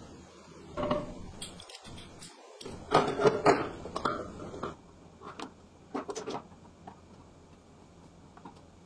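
Copper tubing and a small handheld tube cutter being handled: light clicks, taps and scrapes as the cutter is fitted onto the tube and tightened. The sounds come in a few irregular bursts.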